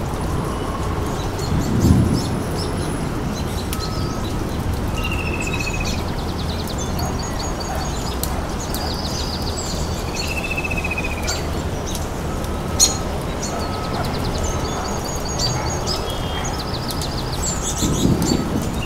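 Several birds chirping and trilling, with repeated short descending whistles, over a steady rain-like hiss. A low rumble comes about two seconds in and again near the end, and there is one sharp click partway through.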